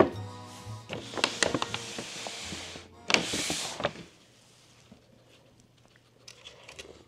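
Soft background music with clicking percussion that stops about four seconds in, with a short breathy rustle just before it ends. Then a quiet room with a few faint small clicks.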